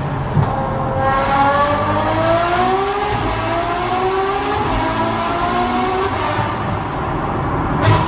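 Ferrari F12 Berlinetta's V12 engine through an Armytrix catless titanium valvetronic exhaust with the valves open, accelerating hard, its pitch climbing in several long rising sweeps. A sharp crack comes near the end.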